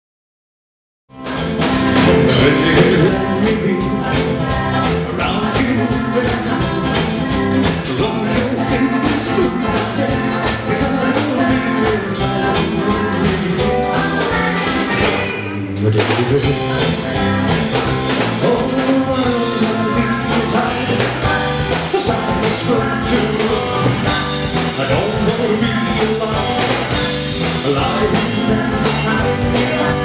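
Rock-and-roll band music with a steady drum-kit beat and singing, starting about a second in after a moment of silence, with a short dip about halfway through.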